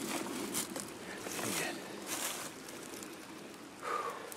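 Dry leaves and clothing rustling, with scraping on wet, muddy ground, in a few short bursts as a hunter works crouched beside a hole in the forest floor and then stands up.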